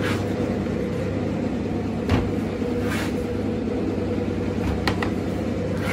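A steady machine hum of several even tones, with a few short rustling scrapes as finely chopped onion is turned over by hand in a wooden trough.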